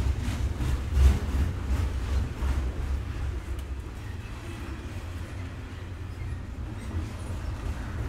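Train passing close by: a steady low rumble with irregular clacks from the wheels over the rails. The clacks ease off in the middle and pick up again near the end.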